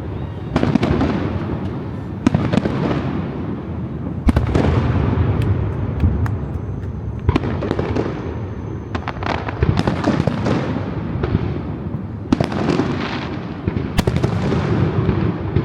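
Aerial fireworks exploding one after another: a dozen or more sharp bangs, each followed by a rolling rumble and crackle, over a continuous low booming.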